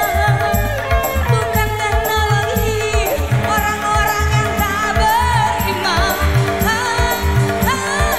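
Live dangdut band playing through a loud outdoor PA, with a steady drum-and-bass beat; a woman's singing voice comes in over it about halfway through.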